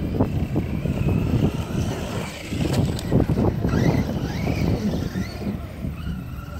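Radio-controlled car's motor whining, rising and falling in pitch as the car accelerates and slows on a dirt track, over a steady low rumble.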